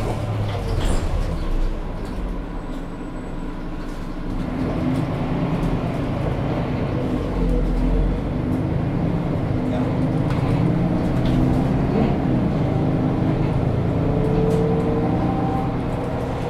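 Mercedes-Benz O530 Citaro city bus with a ZF Ecomat automatic gearbox, heard from inside the passenger cabin as it pulls away and accelerates. The engine grows louder from about four seconds in, and its note climbs in pitch later on.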